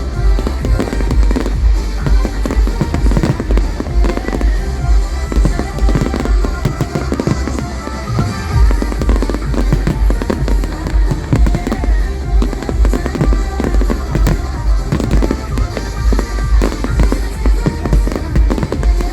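Fireworks going off in a dense run of bangs and crackles, over loud show music with a heavy bass.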